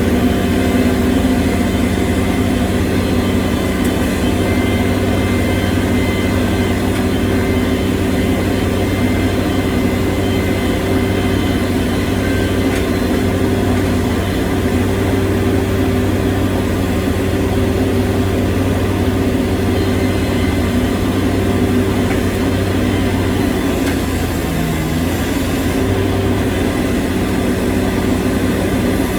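Engine of a piece of earthmoving equipment running steadily at constant speed. The engine note wavers briefly near the end.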